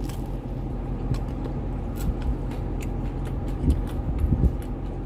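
A steady low hum runs underneath scattered small clicks and a few soft thumps of someone chewing food, with the thumps bunched a little before four seconds in.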